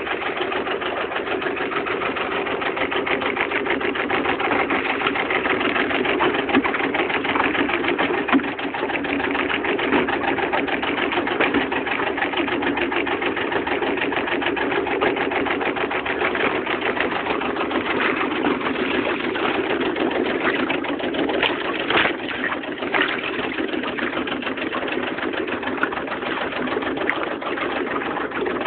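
A boat's engine idling steadily with a fast, even pulse, with a couple of sharp knocks about three-quarters of the way through.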